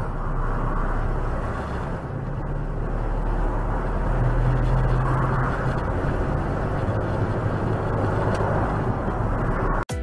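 Engine hum and road noise heard inside a moving vehicle's cab on a dashcam: a steady low drone with tyre roar, cutting off suddenly near the end.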